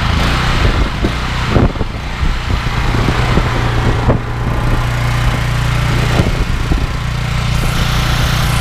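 Honda GX390 petrol engine driving a pressure-washer pump, running steadily with a hiss above it and a couple of short knocks, about two and four seconds in.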